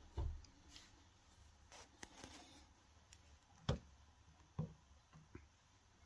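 Faint handling noise: soft knocks and light taps as a black-framed lighter display case is moved about by hand. The loudest knock comes a little past halfway, with another just after it.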